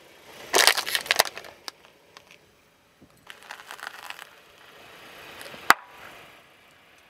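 A car tyre crushing a plastic blister pack of ping-pong balls: a burst of loud cracking and crunching about half a second in. A softer run of crackling follows around three to four seconds in, and a single sharp crack comes near the end.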